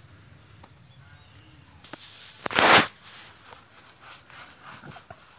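Faint wet rubbing as hands lather soap into a dog's soaked fur, broken by one short, loud burst of noise about two and a half seconds in.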